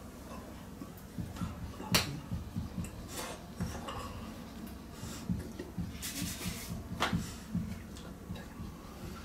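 Hands slapping and brushing against each other and clothing as a person signs: scattered sharp slaps and clicks, the sharpest about two seconds in and again about seven seconds in, over a low room rumble.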